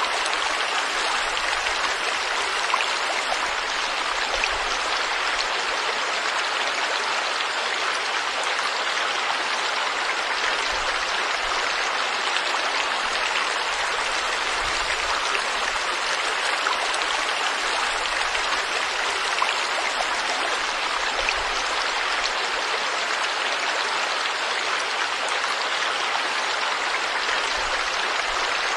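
Stream water flowing and splashing over rocks in a steady, even rush, with a few faint splashes standing out.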